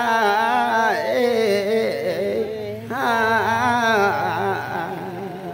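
A voice singing a traditional Limbu song: long held notes with a wavering, ornamented melody in two phrases, the second starting about three seconds in and fading toward the end.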